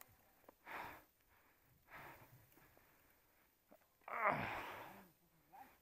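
Heavy breathing of a mountain biker pedalling hard: short, forceful exhales about every second. The loudest, about four seconds in, is a voiced groan.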